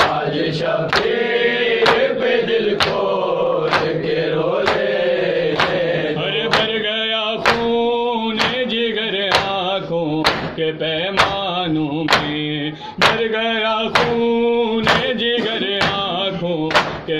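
Men chanting an Urdu nauha (Shia lament) in a steady singing recitation, to sharp slaps of open palms on chests (matam) about twice a second.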